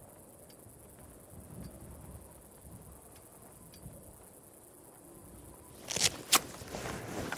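Quiet outdoor ambience with faint, sparse insect chirps. About six seconds in, two sharp clicks come a fraction of a second apart, followed by soft rustling.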